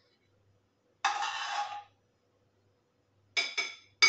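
A spoon scraping across a plate for about a second while spreading sauce, then three quick clinks of the spoon against the dish near the end.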